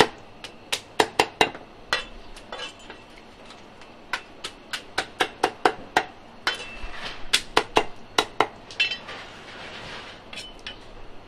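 Kitchen scissors snipping through giant river prawn shells and legs: an irregular run of sharp clicks, two or three a second. A stretch of scraping comes about nine seconds in.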